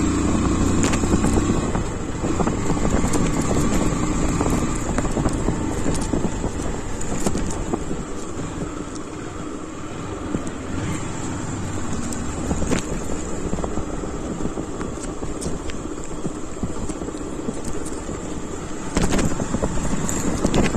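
Honda motorcycle engine running under the rider, mixed with wind and road noise. The engine is loudest in the first couple of seconds as it pulls, then runs more evenly, and swells again near the end.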